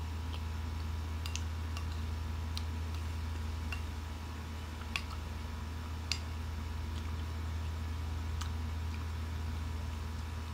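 Scattered sharp clicks, roughly one a second, from eating a creamy fruit salad: a metal spoon tapping and scraping a ceramic bowl, along with mouth sounds. A steady low hum underlies them.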